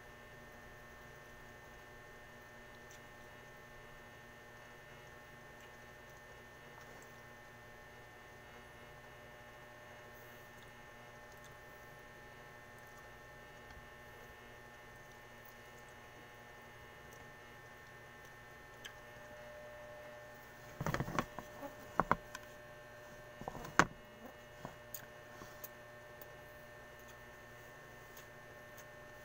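Steady electrical mains hum made of several constant tones. About three quarters of the way through come a few sharp knocks and clatters.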